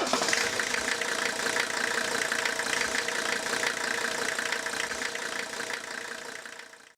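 Engine running steadily with fine, rapid ticking; it starts suddenly and fades out near the end.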